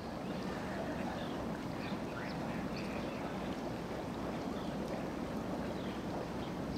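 Steady rush of moving pond water, with faint short high bird chirps scattered through it.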